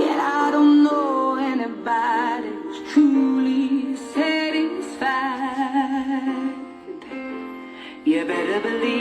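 Music: a woman singing a melody with vibrato over sustained instrumental accompaniment.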